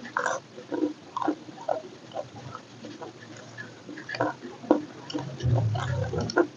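Close-miked mouth sounds of eating: irregular wet chewing and lip smacks. A low rumble comes in about five seconds in and lasts about a second.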